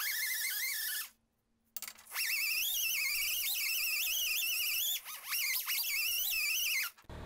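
Pneumatic die grinder whining at high speed as a fine surface-conditioning disc polishes a forged steel hammer head. Its pitch wavers as the disc is pressed and moved. It stops briefly about a second in, starts again, dips for a moment around five seconds, and cuts off near the end.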